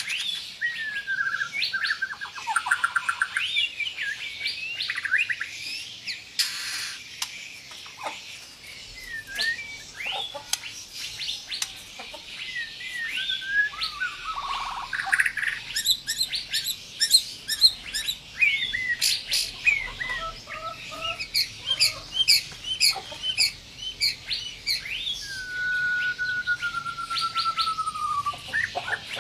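White-rumped shama (murai batu) in full song: a varied run of clear whistled phrases, fast trills and rapid strings of short sharp notes. Near the end it gives one long whistle that slides slowly down in pitch.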